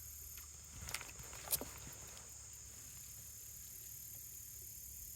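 Quiet outdoor ambience: a faint steady high-pitched hiss, with two short clicks about a second and a second and a half in.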